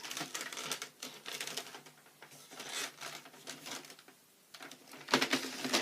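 Rapid clicks and rattles of a plastic toy blaster being handled, with a louder burst of clatter about five seconds in.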